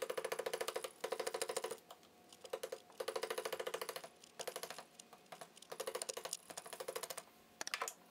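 A steel chisel scraping and paring plywood edges in a series of short strokes, each stroke a rapid chattering run of clicks as the blade skips across the plies.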